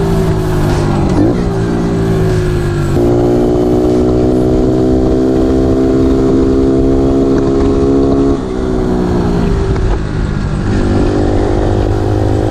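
110cc pit bike engine running at steady revs. Its pitch jumps up about three seconds in, drops back after about five seconds, and changes again near the end.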